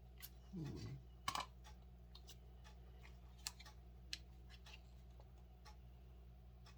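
Near silence: steady low room hum with a few faint, sharp clicks and taps, and a brief low murmur just under a second in.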